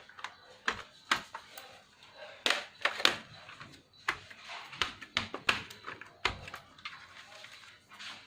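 Irregular clicks and knocks of plastic and small metal parts being handled and fitted as an Asus X45A laptop is put back together.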